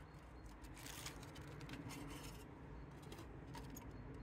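Faint handling of a flat-packed stainless-steel folding wood stove, with light scrapes and taps of the metal panels as they are unpacked and unfolded.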